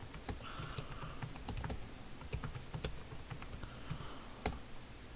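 Typing on a computer keyboard: quiet, irregularly spaced keystrokes.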